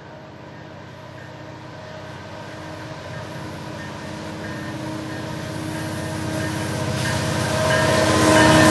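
Norfolk Southern diesel-electric locomotives hauling a welded-rail train approach under power, their engine drone growing steadily louder as they draw near.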